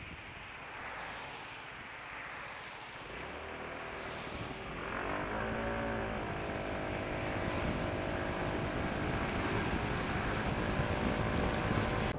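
Wind rushing over the microphone at first; about three seconds in, the Yamaha Cygnus scooter's single-cylinder engine comes up, rising in pitch as the scooter accelerates around five seconds in, then running steadily at cruising speed under the wind noise.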